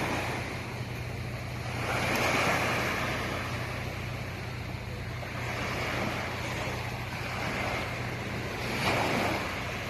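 Sea waves washing in, swelling roughly every three seconds, over a steady low hum, with some wind on the microphone.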